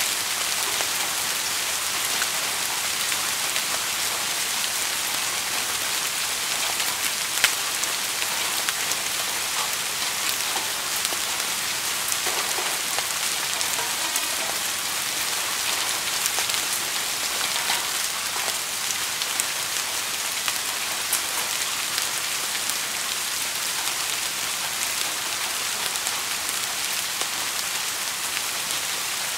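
Steady rain falling: an even hiss with many single drops ticking through it, one sharper tick about seven seconds in.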